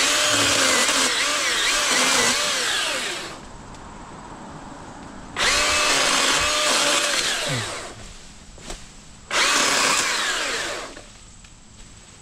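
Milwaukee M18 Fuel 2727-20 battery-powered brushless chainsaw cutting through branches in three bursts, its motor whine wavering in pitch as the chain bites into the wood.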